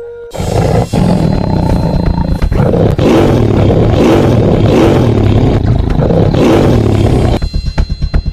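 Tiger roaring sound effect, loud and continuous for about seven seconds, swelling and easing in waves. It cuts off near the end as a fast electronic drum beat comes in.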